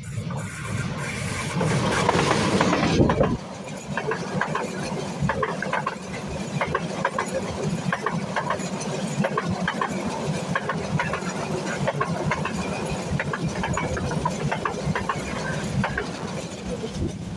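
A diesel locomotive passes close by, its engine loudest in the first three seconds. A train of passenger coaches follows, rolling by with a steady clickety-clack of wheels over the rail joints, and the sound fades near the end as the last coaches go past.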